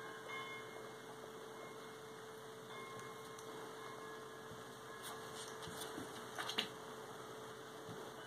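A steady electrical hum, with a few light clicks and a brief scuffle about six and a half seconds in from a husky puppy and a tabby cat wrestling on a tile floor.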